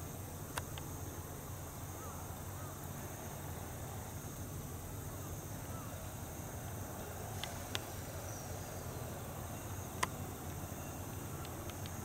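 Crickets and other field insects chirring steadily over a low rumble, with a few sharp clicks scattered through.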